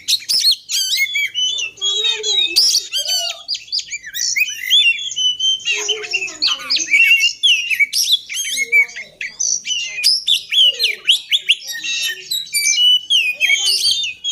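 Oriental magpie-robin (kacer) singing a loud, continuous, fast-changing song of quick chirps, whistles and harsh notes, with some lower mimicked notes among them. It is the full, excited song used as a lure recording to set a silent magpie-robin singing.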